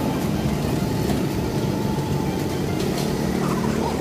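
Honda RS150R motorcycle engine running at a steady speed, with an even hum and no revving.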